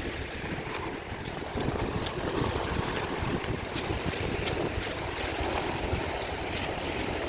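Wind buffeting the microphone in a steady, gusty rush, with a few faint clicks.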